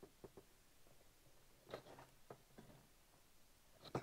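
Near silence, with a few faint, short taps and rubs as fingers press vinyl wrap down onto a plastic snowmobile panel.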